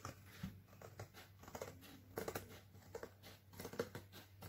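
Scissors cutting through thin cardboard: a run of faint snips, roughly one every half second.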